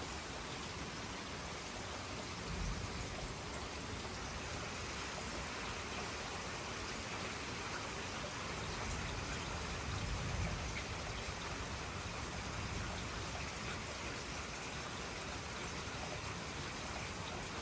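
Heavy rain falling steadily, an even hiss of drops, with two brief low rumbles about three and ten seconds in.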